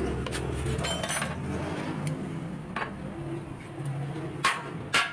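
Steel suspension parts and hand tools clinking and knocking against each other as a control arm and ball joint are fitted to a car's cross member. There are several separate sharp clinks, and the loudest two come close together near the end.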